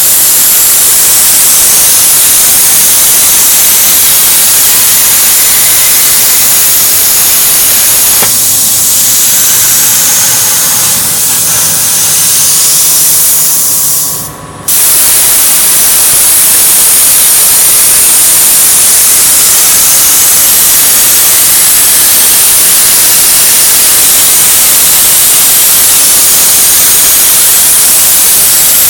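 Plasma cutting torch of a Start-2A plasma cutting machine running, a loud steady hiss as it cuts metal from pre-pierced holes. About halfway through the hiss cuts out for under half a second, then starts again.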